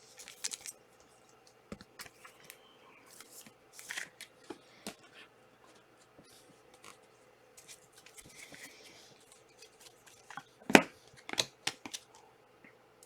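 Panini Prizm soccer trading cards and pack wrappers being handled. Scattered soft rustles, slides and clicks, with the loudest a sharp snap about three-quarters of the way through.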